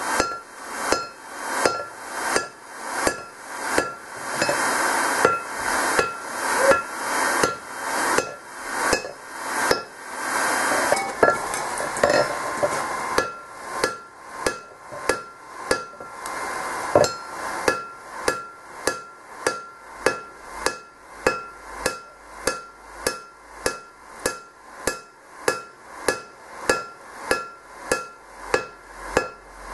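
Hand forging: a hand hammer strikes a glowing steel hammer head held in tongs on an anvil, in a steady rhythm of about two blows a second. Each blow gives a sharp metallic strike with a brief ring.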